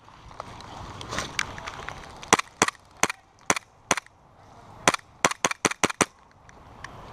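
A string of single sharp airsoft gun shots, irregular at first, then a quick run of about five shots close together shortly before the end.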